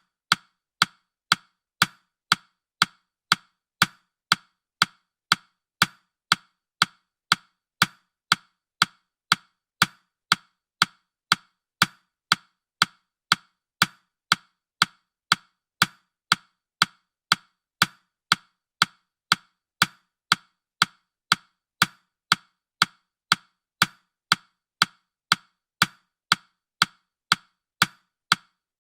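Countdown timer ticking: a sharp, wooden-sounding tick about twice a second, perfectly even.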